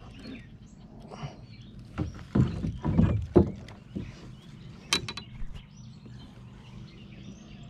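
A small largemouth bass being swung aboard a plastic kayak: a run of thumps and splashy knocks about two to three and a half seconds in, then a few sharp clicks near five seconds.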